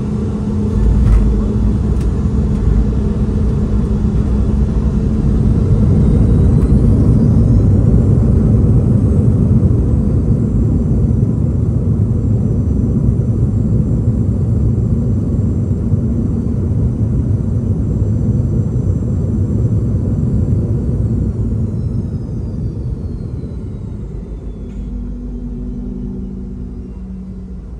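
Boeing 717's rear-mounted Rolls-Royce BR715 turbofans heard from inside the cabin during a landing. A thump about a second in as the main gear touches down, then engine rumble and whine rising around six seconds in as reverse thrust spools up. The whine holds, then winds down after about twenty seconds, leaving a quieter rollout rumble.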